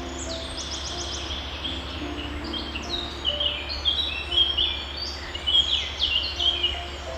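Several small birds chirping: quick, downward-sweeping chirps, some in fast runs, growing busier from about three seconds in. Under them is a steady low background hum.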